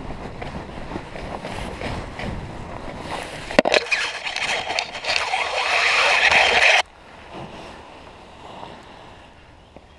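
Wind buffeting a helmet-mounted camera's microphone as a paraglider lands and the canopy comes down. There is a knock about a third of the way in, then a louder rushing hiss for about three seconds that cuts off suddenly, leaving only faint wind.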